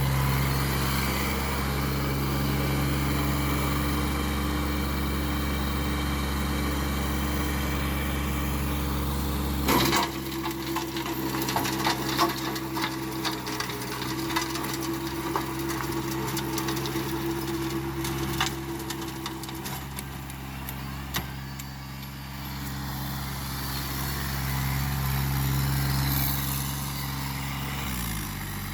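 Massey Ferguson GC1715 compact tractor's diesel engine running steadily, powering a Taylor Way rear tiller. About ten seconds in the note shifts and a scatter of sharp clicks and knocks sets in. Near the end the engine note falls as the revs drop.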